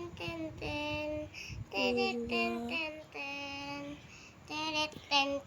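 A child singing a tune without accompaniment: a string of held notes, each about half a second to a second long, with short breaks between them.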